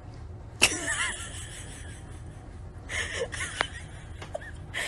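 A woman chuckling softly, with a couple of sharp light clicks.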